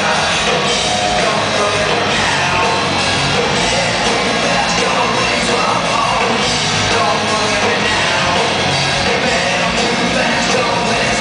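Live hard-rock band playing loudly, with electric guitars, drums and a singer's vocals, heard from inside the crowd.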